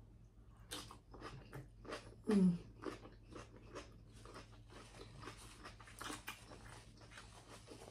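Close-miked chewing and mouth sounds of a person eating a seafood boil: irregular wet smacks and clicks. A short hum of the voice comes about two and a half seconds in.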